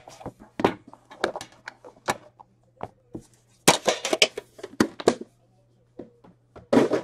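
A 2022 Panini Immaculate baseball hobby box being handled and opened by hand: a run of cardboard clicks, taps and slides, busiest about halfway through, with a fuller knock or rustle near the end.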